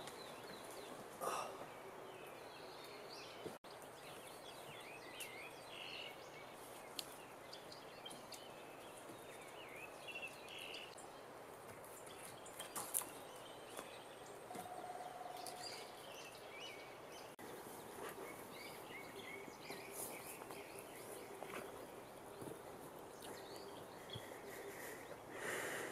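Faint woodland ambience with scattered bird chirps and calls, and an occasional soft knock.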